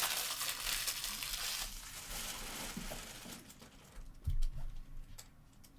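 Foil wrapper of a baseball card pack crinkling as it is torn open, for about three seconds, then a few light clicks and a soft thump a little past four seconds in.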